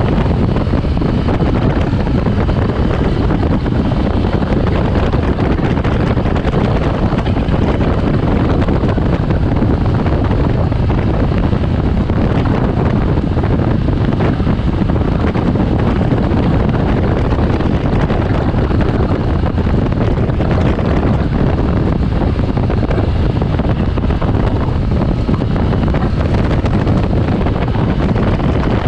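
Steady wind rush on the microphone of a moving motorcycle, with the motorcycle's engine running underneath at a constant level.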